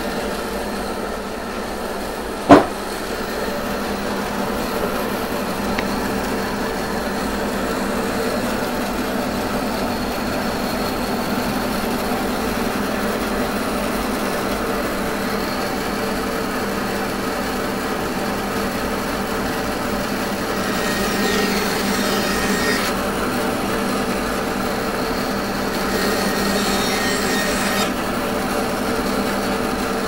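Bandsaw running steadily while its blade cuts through red ironbark, with louder bursts of cutting about two-thirds of the way in and again near the end. One sharp knock about two and a half seconds in.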